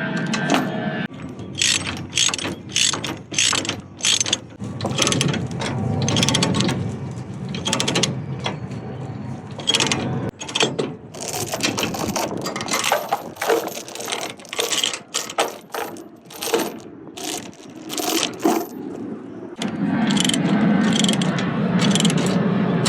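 Ratchet chain binder being cranked to tighten the load chains, its pawl clicking in bursts of strokes, over a low steady hum that grows louder near the end.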